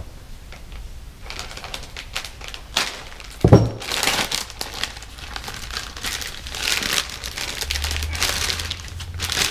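Thin plastic packaging bag crinkling and rustling as it is handled and opened to take out a new helmet face shield, with one sudden thump about three and a half seconds in.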